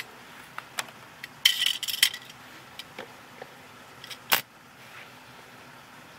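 Thin aluminum plates clinking and scraping on a concrete floor as they are shifted back into place, with scattered sharp clicks, a brief metallic rattle about one and a half seconds in and a single sharp click past the middle.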